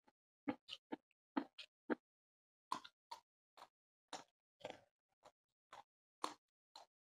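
Close-up mouth sounds of a man eating rice and fish curry by hand: a string of short, wet smacks and chewing clicks, irregular, about two or three a second, with silence between them.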